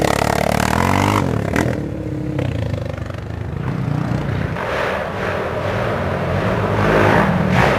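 Race quad (ATV) engines revving as they pass. The sound is loud at first with a rev change about a second in, eases off in the middle, and builds again near the end as more quads approach.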